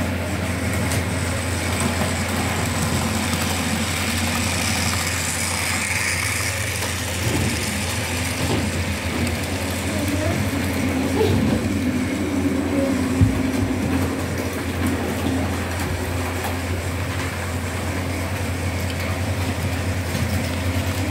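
Model train running on the layout track: a steady electric motor hum with its wheels rumbling along the rails, and one sharp click about thirteen seconds in.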